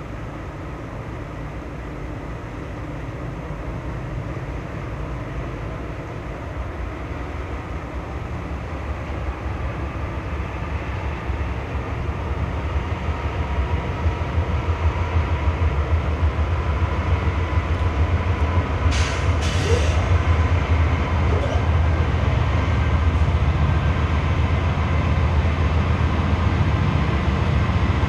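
CSX diesel-electric freight locomotives approaching, a low engine rumble that grows steadily louder. Two short hissing bursts come about two-thirds of the way through.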